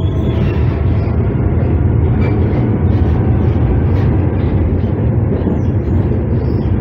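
Tatra KT3UA tram running along the track, heard from inside the passenger car: a steady, loud rumble of wheels on rails and the car body, with no breaks.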